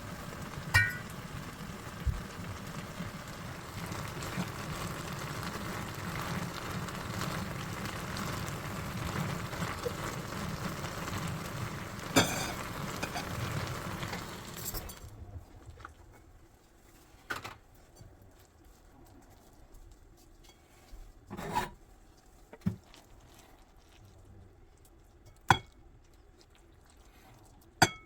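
Kitchen sounds during cooking: a steady hiss for about fifteen seconds that stops fairly abruptly, then a few scattered clinks and knocks of dishes and utensils.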